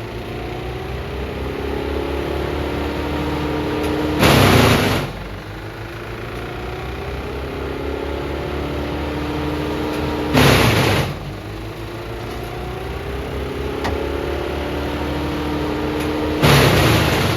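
A Morbark M14 drum chipper's Perkins 1104E diesel engine runs steadily. Three times, about six seconds apart, a loud rush of noise lasting under a second sounds over it.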